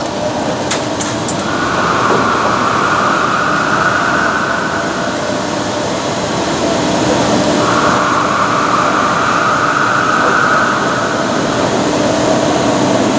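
Dörries SD 600/6500 vertical turning lathe running with its 6.5 m faceplate table turning under power: a steady mechanical drive hum with a higher whine that swells and fades twice.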